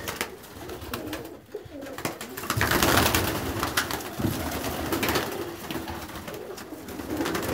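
Domestic pigeons cooing in a loft, with a loud flurry of wing flapping about two and a half seconds in and smaller flurries after.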